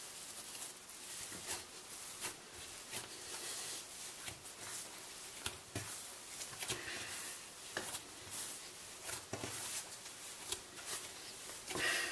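Hands kneading whole-wheat yeast dough on a floured wooden board: soft, irregular scuffs and pats as the dough is pressed and folded against the wood.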